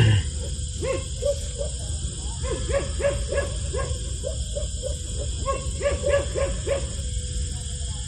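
Bully Kutta puppy crying in repeated short, falling whimpers and yelps, about two a second, while held down for ear cropping.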